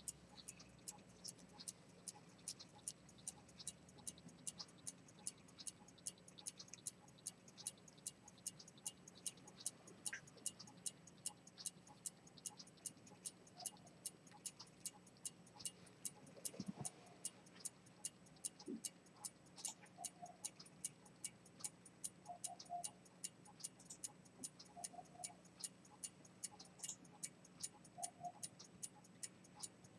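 Ticking of a c. 1875 Swiss key-wound fusee pocket watch with a pivoted-detent chronometer escapement, running with its movement open: a quick, even run of short, sharp ticks, several a second.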